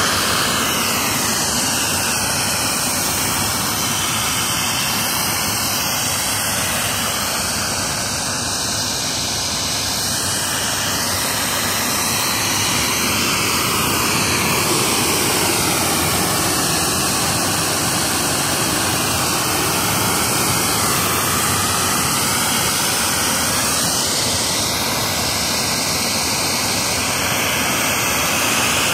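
Compressed air rushing out of the open end of a fibre-optic duct in a steady loud hiss, as fibre cable is being blown through it toward the handhole.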